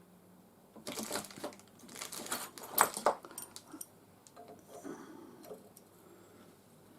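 Small metal clicks and scrapes of a hand tool working a brass nut onto an earth-link screw, busiest in the first half, then a few fainter ticks.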